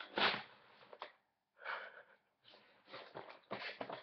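Breathy laughter and gasps of delight, loudest just after the start and again a second and a half later, followed in the last second and a half by plastic packaging crinkling as it is handled.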